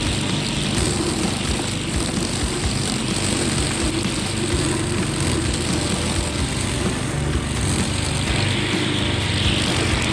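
Wheeled string trimmer (weed whacker) running steadily while cutting weeds.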